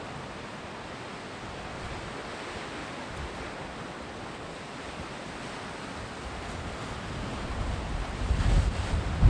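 Sea surf washing on the shore: a steady hiss of breaking water. Near the end, wind gusts start buffeting the microphone with low rumbles.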